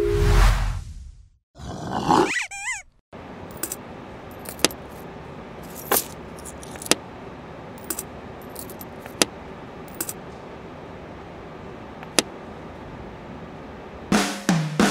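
A swish and a short warbling sound effect in the first three seconds, then a coin clinking sharply against a ceramic piggy bank and wooden tabletop, about eight separate clinks over a steady hiss.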